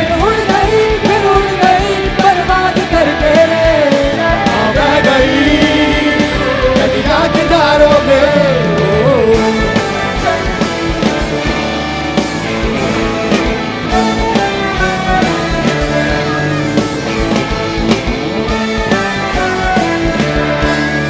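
Live rock band music with a drum beat. A sung melody line slides up and down in pitch through roughly the first half, and then the band carries on instrumentally.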